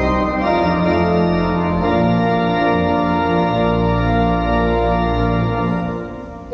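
Church organ playing held chords over deep bass notes that change every second or two, dying away near the end.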